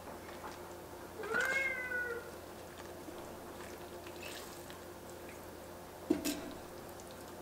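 A cat meows once, about a second in: a single call that rises then falls in pitch. Near the end, a wooden spatula knocks and scrapes against the enamelled pot.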